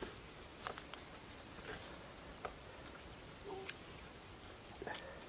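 Faint, steady high chirring of jungle insects, with scattered short clicks and crunches, about one a second and the sharpest near the end, from biting and chewing roast chicken.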